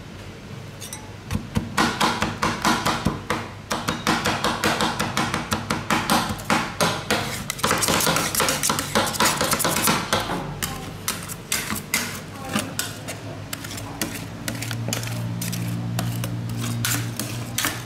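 Two metal spatulas chopping and scraping rolled-ice-cream mix on a frozen steel pan: rapid clacks, several a second, for most of the first ten seconds, then fewer clacks and scraping strokes as the mix is spread and scored into strips.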